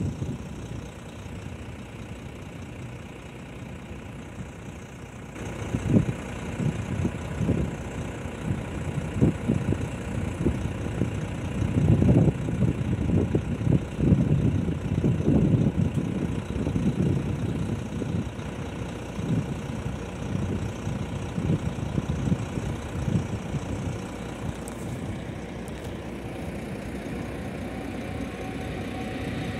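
Wind buffeting the phone's microphone in uneven low rumbles, over the approach of a passenger train hauled by an EU160 electric locomotive.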